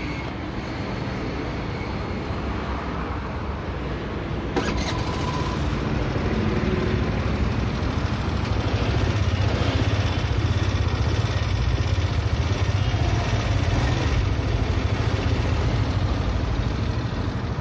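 Hero Pleasure Plus BS6 scooter's 110.9cc single-cylinder fuel-injected engine running steadily, with a fairly decent sound; it grows louder from about eight seconds in.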